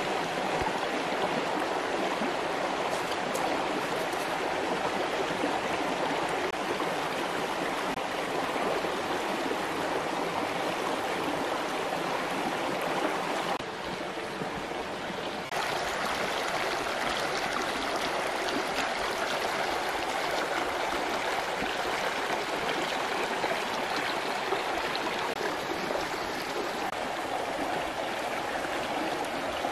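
Shallow stream running over rocks: a steady rush of water, briefly a little quieter for a couple of seconds about halfway through.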